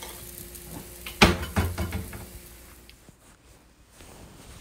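Food sizzling in a hot pan on the stove. About a second in comes a sharp knock and a few quick clatters of a cooking utensil against the pan, then the sound quietens.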